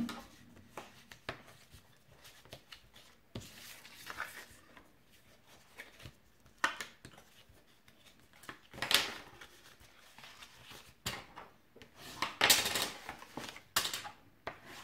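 Cardstock and paper handled on a tabletop: soft rubbing as fold lines are creased and paper pieces pressed down, with scattered light taps and clicks, the loudest a little after halfway and near the end.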